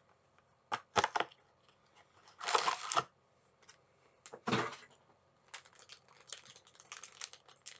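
A Pretz baked snack-stick packet being torn open and handled. There are several separate tearing rips, the loudest about two and a half seconds in, then a run of quieter crinkling of the wrapper from about five and a half seconds on.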